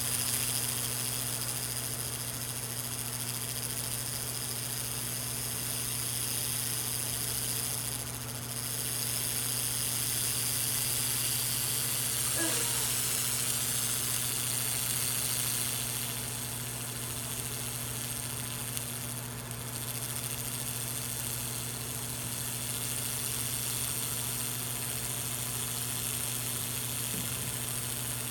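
Handheld laser cleaner stripping zinc coating from a metal bar: a steady high hissing buzz over a constant low hum from the machine. The hiss dips briefly about 8 and 19 seconds in.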